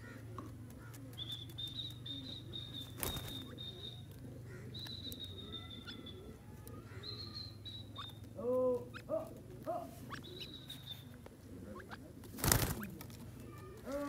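Francolins foraging, giving a few soft, short calls about eight and a half seconds in, over a steady low hum. A thin high whistle is held for a second or two, four times, and two sharp knocks come about three seconds in and near the end, the second the loudest sound.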